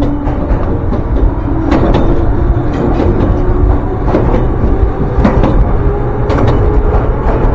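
Electric train running on the Ryutetsu Nagareyama Line: a steady rumble with a whine that slowly rises in pitch, and the wheels clicking over the rail joints about once a second.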